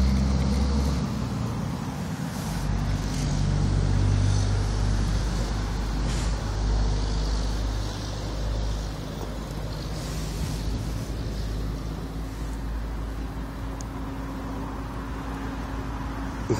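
A steady low engine drone, with a short click near the end.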